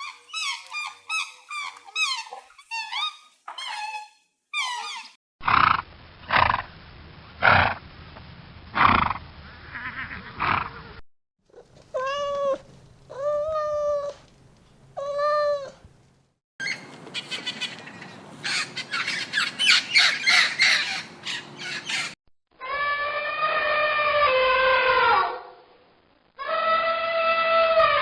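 A series of different farm animal calls spliced one after another: rapid chirping first, then rhythmic pulsed calls, three separate pitched calls about a second apart, a noisy stretch, and two longer pitched calls near the end.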